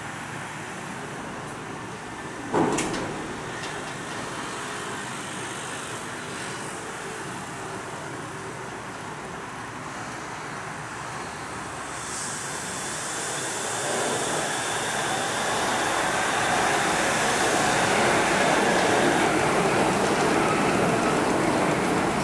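Shonan Monorail suspended, rubber-tyred monorail train running along its overhead guideway, its running noise building up steadily over the second half and staying loud as it passes close by. A single sharp knock comes about two and a half seconds in.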